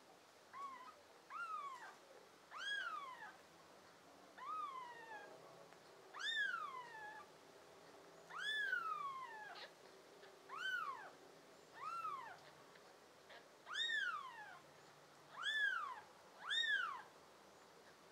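Newborn kittens mewing: about eleven short, high cries, each rising then falling in pitch, a second or two apart.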